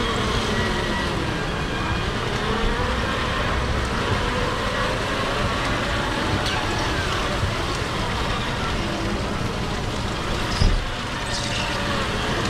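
Steady din of a busy street-food stall with indistinct voices in the background, around a closed shrimp-cracker press. A single thump comes about ten and a half seconds in.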